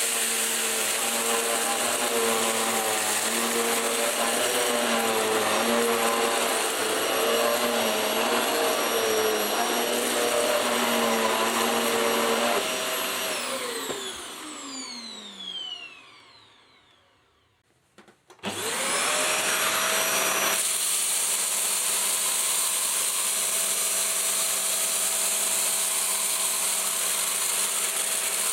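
Hoover Slalom Allergy Care+ upright bagless vacuum cleaner running, its motor pitch wavering, then switched off about twelve seconds in, the motor winding down to near silence over several seconds. About eighteen seconds in it is switched back on, spins up quickly, and runs steadily.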